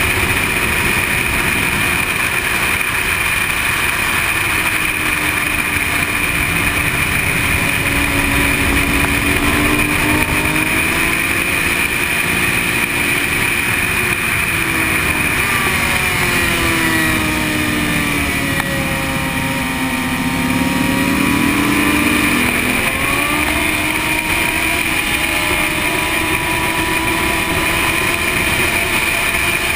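Sport motorcycle engine running at track speed under heavy wind rush, its pitch sinking as the rider slows about two-thirds of the way through and then climbing again as the bike accelerates.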